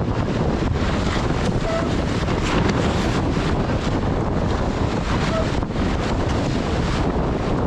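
Wind buffeting the microphone over the steady rush of water along the hulls of a Tornado catamaran sailing fast in a gust.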